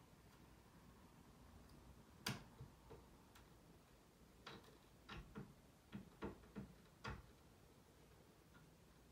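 Faint, scattered clicks and knocks from hand work on a wooden fish tank stand. The sharpest comes a little over two seconds in, followed by an uneven run of about seven between four and seven seconds in.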